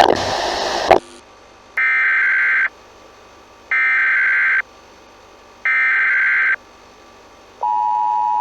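The preceding programme's sound cuts off abruptly about a second in. Three short bursts of Emergency Alert System SAME header data follow, warbling electronic tones about two seconds apart. Near the end the steady two-tone EAS attention signal starts up.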